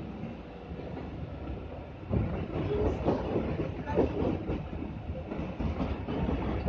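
Mumbai suburban electric local train on the move, heard from inside a coach: the steady rumble and clickety-clack of the wheels over the rail joints, growing louder and more clattery about two seconds in as it runs out of the station.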